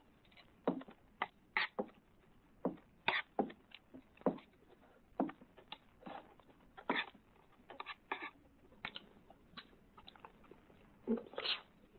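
A person eating greedily with a spoon: irregular short slurps, gulps and clicks of the spoon on the dish, about one or two a second.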